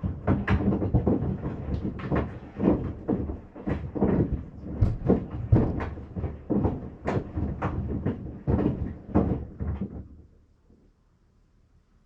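Sandals tumbling in a Maytag washing machine, knocking and thudding irregularly against the sides of the wash drum, about twice a second. The knocking stops about ten seconds in.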